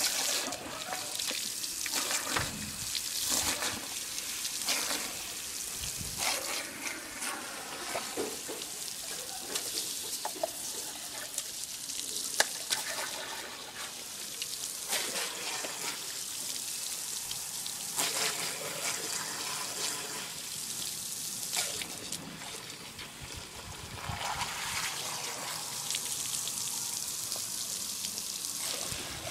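Garden hose spraying water: a steady hiss broken by irregular splashes and spatters as a dog plays in the stream.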